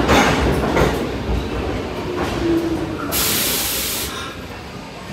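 NYC subway A train pulling along the platform, its steady rumble slowing. There are wheel clacks over rail joints in the first second, a brief low whine about two seconds in, and a loud burst of air hissing about three seconds in.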